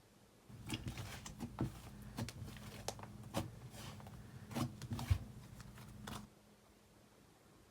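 Hands squishing and pressing a thick, glossy slime, making a run of sticky clicks and small pops; it starts about half a second in and stops a little after six seconds.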